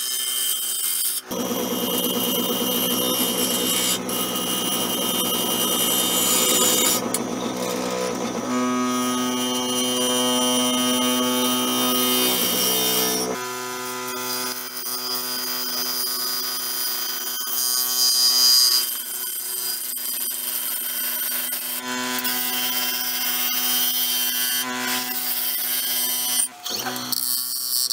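A bowl gouge cuts the inside of a cedar-and-epoxy-resin bowl spinning on a wood lathe: a steady scraping cut over the lathe's running hum. The tone changes abruptly a few times as the cut changes.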